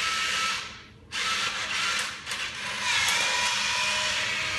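Bill acceptor's small transport motor drawing in a $1 US bill: a short run of about a second, a brief pause, then a longer run with a steady whine, as the bill is taken and accepted.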